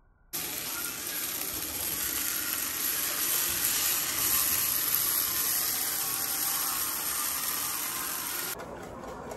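Diced vegetables sizzling in hot oil in a nonstick frying pan as they are stirred, a steady hiss that cuts off abruptly near the end.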